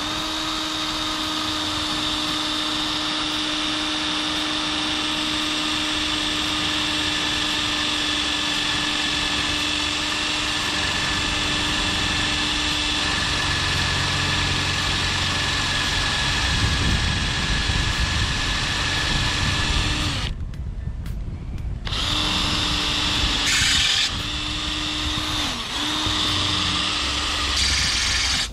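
Cordless drill running steadily at full speed, boring a pilot hole in the roof-rack rail for a self-tapping screw. It runs for about twenty seconds, stops for a second or two, then runs again with two brief stops near the end.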